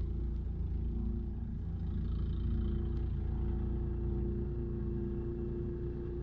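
Snowblower engine running steadily: an even, low drone with a constant hum.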